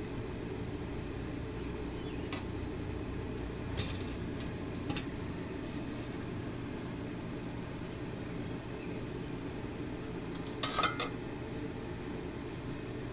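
A metal pot of quench liquid being handled and set down beside the anvil: a few light metal knocks, then a louder clatter near the end, over a steady low rumble.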